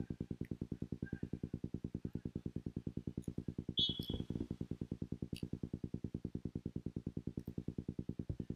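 A referee's whistle blows once, briefly, about four seconds in, over a low, rapid, even pulsing of about ten beats a second.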